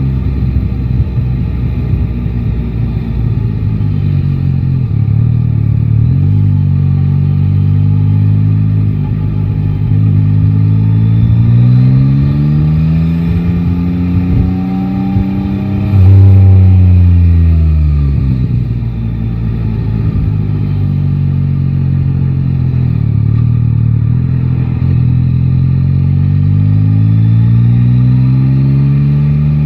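Yamaha Tracer 9 GT's inline-three engine pulling away, its pitch climbing through the gears. About halfway through it drops sharply as the bike slows, with a sudden loud low rush, then it climbs again as the bike accelerates. Wind noise runs underneath.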